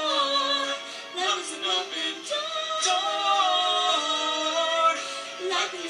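A pop duet playing from laptop speakers, with a woman singing along in long held notes and a few sharp percussion hits.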